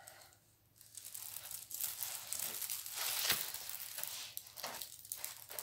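Clear plastic protective film on a rolled diamond-painting canvas crinkling as the canvas is held up and shifted, starting about a second in and loudest around the middle.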